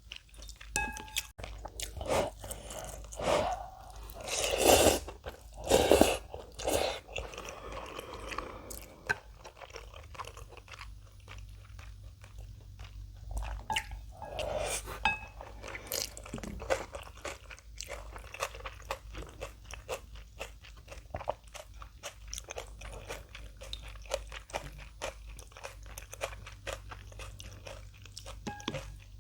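Close-miked eating sounds: chewing and crunching on ramen and kimchi. It is louder about four to seven seconds in and again around fifteen seconds.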